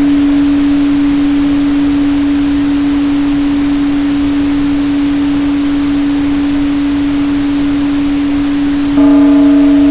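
A steady 285 Hz tone over an even pink-noise hiss, slowly fading. About nine seconds in the tone is sounded again, louder, with a short ring of higher overtones like a struck bowl.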